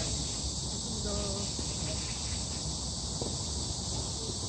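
Steady, high-pitched insect chorus, with faint distant voices and a couple of light knocks.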